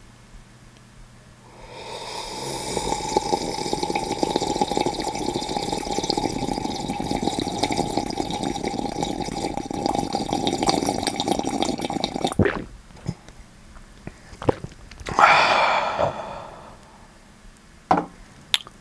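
Drinking from a mug close to the microphone: one long, continuous slurping liquid sound lasting about ten seconds that stops suddenly. A shorter noisy burst follows a few seconds later.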